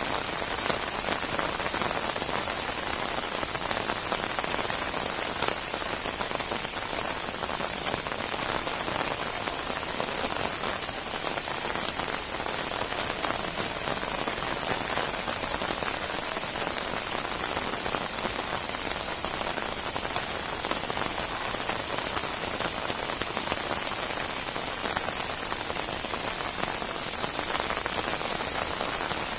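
Steady heavy rain falling and pattering on surfaces, a dense even hiss with fine crackle of drops.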